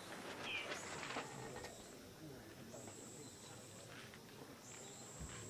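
Faint background voices, with a thin high whine that comes and goes in stretches of about a second.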